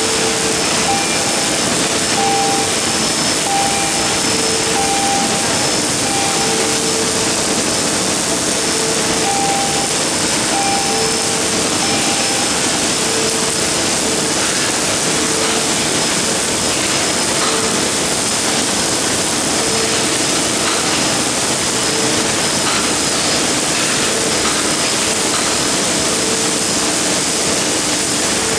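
MIG welding arc hissing and crackling steadily as the automatic gantry welder lays a bead, with a faint machine hum that comes and goes every second or so.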